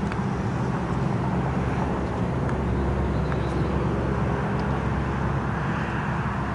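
Steady low outdoor rumble of wind buffeting the microphone, with a few faint clicks.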